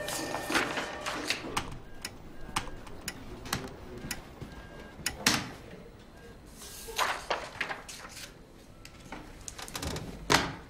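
Computer keyboard keys clicking in irregular runs of typing, with a few louder knocks in between, the loudest just after ten seconds.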